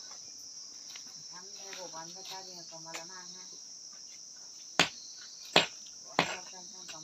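Steady high-pitched insect chorus, a constant shrill trilling of crickets. About five seconds in come three sharp knocks, the loudest sounds.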